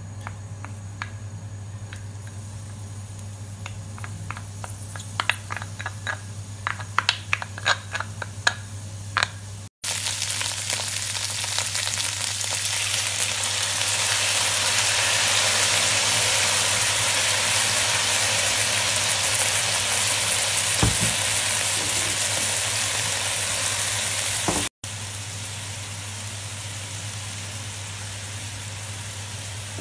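Fresh garlic and then whole artichokes frying in oil in a stainless steel pot. At first it is a quiet sizzle with a run of sharp ticks and taps. About a third of the way in it jumps to a loud sizzle as the artichokes and tamari go in, then near the end it drops to a steadier, quieter sizzle. A low steady hum sits underneath.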